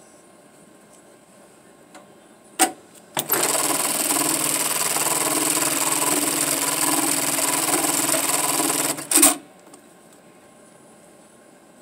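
JACK computerized pattern tacker sewing a W-stitch pattern on 1-inch webbing. A sharp clack comes about two and a half seconds in, then about six seconds of steady fast stitching, which ends in a loud clack.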